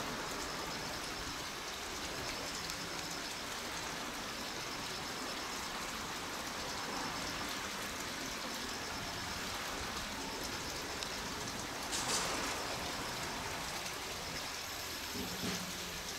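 Steady outdoor background hiss with a faint, repeating high chirping, and a brief louder noise about twelve seconds in.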